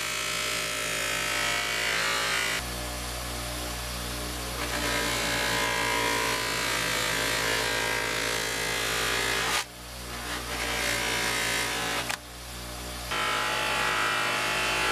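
Electric sander fitted with a cotton buffing wheel, running with a steady motor whine while a steel hatchet head is pressed against the wheel to polish it. The sound changes abruptly several times, dropping suddenly about ten seconds in and again about two seconds later before coming back.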